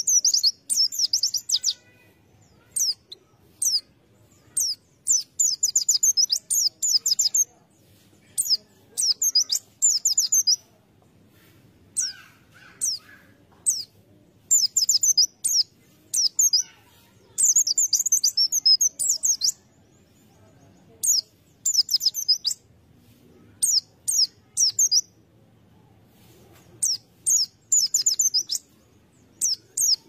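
White-eye (pleci) singing: bursts of rapid, high-pitched twittering notes, each phrase lasting a second or two, repeated with short pauses between them.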